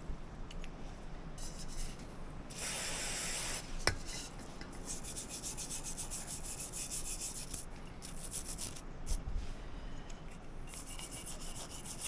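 Wire brush scrubbing dirty motorcycle rear-suspension parts in quick repeated strokes, with a denser hiss for about a second around three seconds in and a single sharp click just after.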